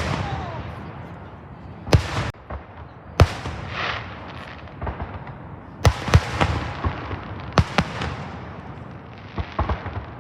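Fireworks going off: a string of sharp bangs, about ten of them at uneven spacing, several in quick pairs, each trailing off in a crackle.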